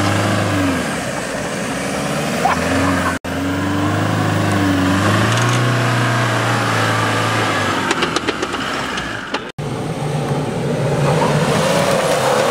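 Toyota Fortuner's engine revving up and down while its wheels spin and dig into loose sand, with grit crackling against the body. A sudden cut near the end brings in a Toyota Land Cruiser Prado's engine revving, with a wheel spinning in the sand.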